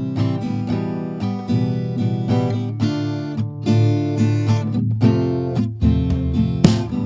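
Background music: an acoustic guitar playing picked notes and chords in a steady rhythm.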